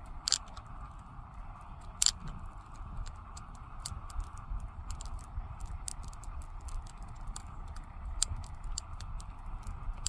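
Balisong (butterfly knife) being handled: scattered sharp clicks and clacks of its metal handles and blade, with two louder clacks about a third of a second and two seconds in, over steady background noise.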